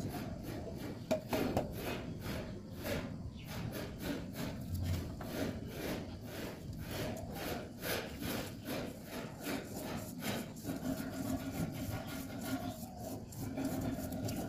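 Rhythmic rubbing strokes, about three a second, from a small PVC pipe fitting being worked by hand.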